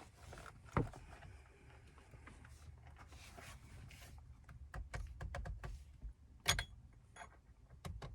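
Clicks and knocks of hands working stick-on paddle shifter extensions on a car's steering wheel, which come loose when pulled. There is a sharp knock about a second in, a run of small clicks around five seconds in, and a loud click about six and a half seconds in, over a low steady rumble.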